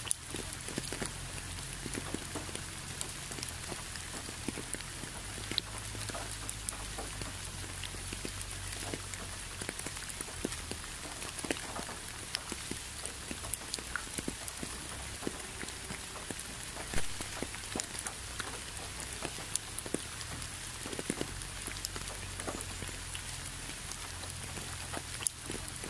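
Steady rain falling, with many close drops landing as scattered sharp ticks over an even hiss and a low rumble underneath. One drop hits louder about two-thirds of the way through.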